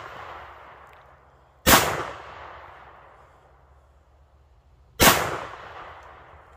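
Citadel Boss 25 semi-automatic 12-gauge shotgun fired twice, about three seconds apart. Each sharp blast is followed by a long echo dying away.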